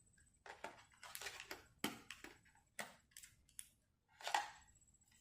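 A laptop hard drive and the laptop's plastic case being handled: about half a dozen short clicks and light scrapes as the drive is fitted into its bay, the loudest about four seconds in.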